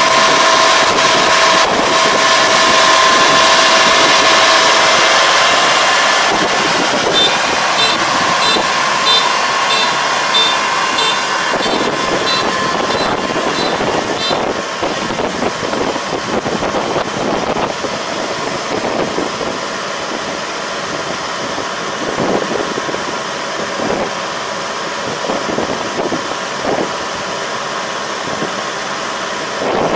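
Combine harvester running steadily, with a whine in its sound for the first few seconds. A high beep repeats about twice a second for several seconds partway through.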